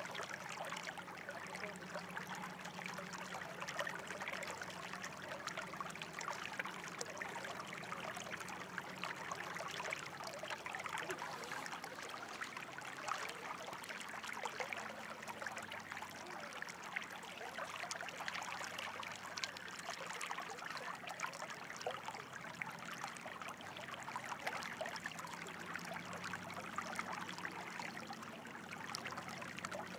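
Running water trickling and splashing steadily, a dense patter of small splashes with no pauses.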